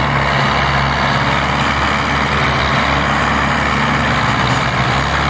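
Belarus tractor diesel engines running flat out under heavy load, a steady unbroken drone, as they strain to haul a laden sugarcane trolley stuck in soft ground.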